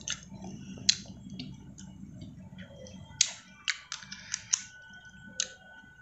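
Close-up eating noises as a man eats sweet vermicelli pudding: sharp, irregular clicks and mouth smacks, one about a second in and several in quick succession past the middle.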